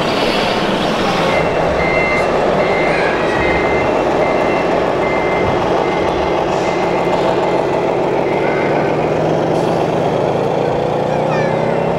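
Reversing beeper from an RC model truck's sound module: a high beep repeating about every two-thirds of a second, over a steady background din. A low hum slowly rises in pitch near the end.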